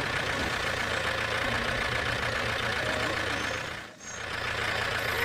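Small tractor engine running steadily, cutting out briefly about four seconds in and then coming back.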